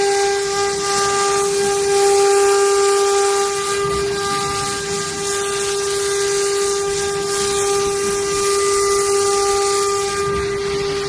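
CNC router spindle running at steady speed: one unbroken whine with overtones over a hiss.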